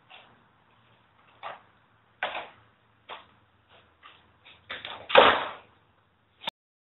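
Plastic pails being handled and set down: irregular knocks and clatters, the loudest and longest about five seconds in, ending with a sharp click.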